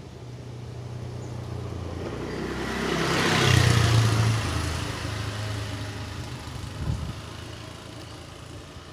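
CC206 diesel-electric locomotive running under power as it pulls a passenger train away, a steady low engine note with a hiss that swells to its loudest about halfway through, then fades as it moves off.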